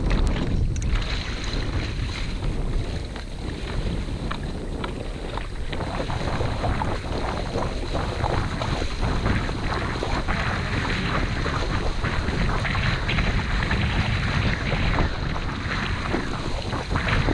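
Wind buffeting the microphone over splashing water as a person wades through shallow water, towing a sit-on-top kayak whose hull swishes through the water behind him.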